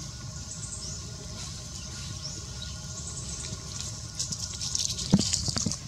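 Low steady rumble with faint high chirps, then, about four seconds in, a short burst of dry crackling and rustling with a few louder knocks, lasting under two seconds.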